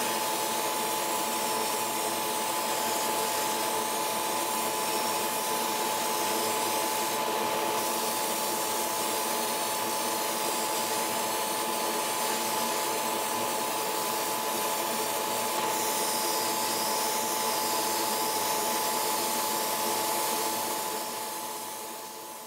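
Steady whirring hiss of a hobby spray booth's extractor fan running while an airbrush sprays paint onto a plastic model car body, fading out near the end.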